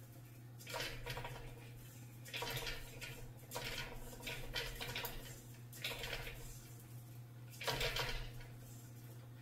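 Animatronic marionette rig moving a carved wooden monkey puppet on its strings: five short bursts of mechanical noise, each lasting up to about a second and a half, as the limbs are jerked about. A steady low hum runs underneath.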